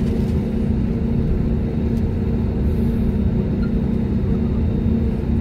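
Jet airliner's engines running at taxi power, heard from inside the cabin: a steady low rumble with a constant drone.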